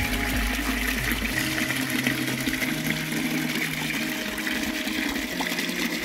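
Spring water running steadily from a fountain's brass spout and splashing into a stone basin.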